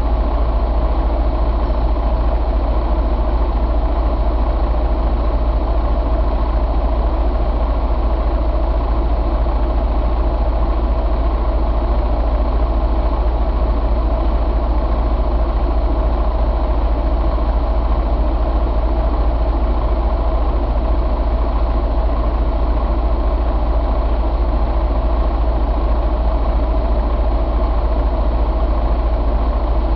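Detroit DD13 inline-six diesel engine idling steadily, with an even low rumble and no change in speed.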